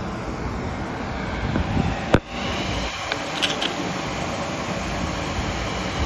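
Steady rumbling background noise, with a single sharp click about two seconds in and a few faint short high squeaks a little later.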